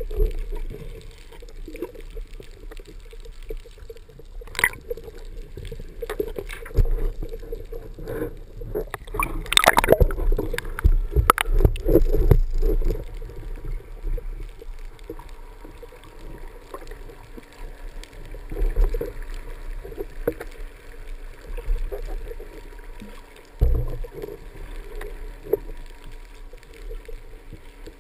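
Underwater water noise picked up by a camera just below the surface: a continuous gurgling, sloshing wash with scattered clicks, louder and splashier for a few seconds around ten seconds in.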